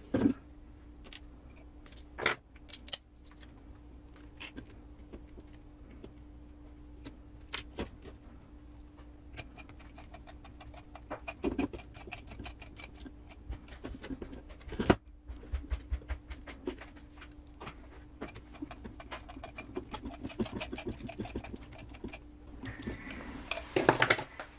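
Small clicks and rattles of a hex driver and metal RC crawler parts as screw pins are driven in to fasten the drive shafts, with a few louder knocks from the chassis being handled, the loudest about halfway through.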